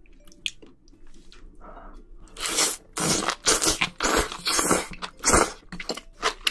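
Close-miked eating of spicy glass noodles: after a quieter first two seconds, a rapid run of loud slurping and wet chewing.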